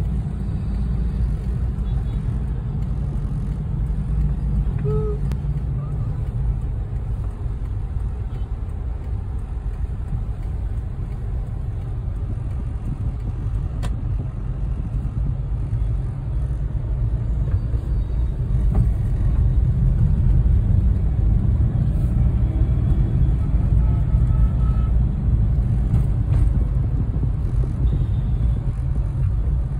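Road noise heard inside a moving car's cabin: a steady low rumble of engine and tyres, growing louder for a stretch about two-thirds of the way through.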